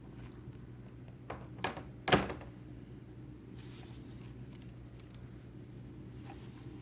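Hard plastic CGC comic slabs being handled: two light clicks, then a sharp knock about two seconds in as a slab is set down, and a short scrape a couple of seconds later as one slides across the surface.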